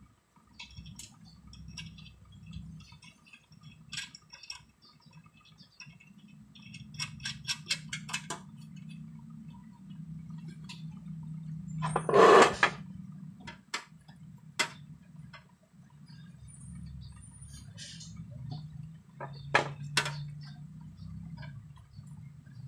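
Small metal clinks and knocks from handling a sheet-metal AVR enclosure and its parts during assembly, with a quick run of clicks and one much louder scrape or clunk about twelve seconds in. A faint low hum runs underneath.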